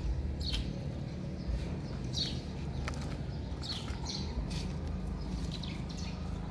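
Short, high-pitched chirping calls, several in a row at irregular intervals, each sliding down in pitch, over a steady low rumble.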